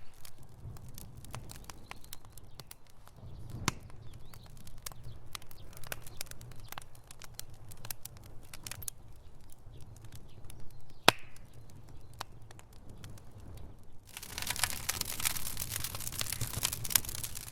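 Fireplace fire crackling: scattered sharp pops and snaps over a steady low rumble, with one louder pop about two thirds of the way through. For the last few seconds the crackle turns denser and more hissing.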